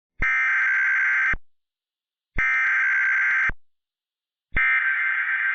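Emergency Alert System SAME header tones: three harsh, buzzy digital data bursts of about a second each, a second apart, the third starting near the end.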